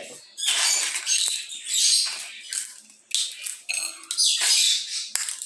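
Dry, brittle feijão-fava (lima bean) pods crackling and rustling as they are snapped open by hand, in several short bursts with brief pauses between them.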